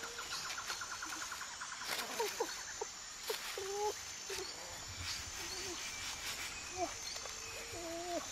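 Several short, pitch-bending animal calls, some with a paired upper tone, over a steady high insect whine and the crackle of dry leaf litter being disturbed. A rapid trill sounds in the first second.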